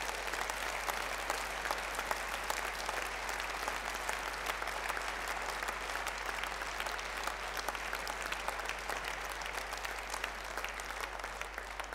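Audience applause: many people clapping steadily in a hall, thinning out near the end.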